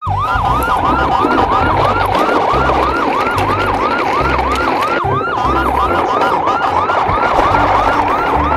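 Electronic siren sound, a fast yelp rising and falling about three times a second, over a deep pulsing low beat.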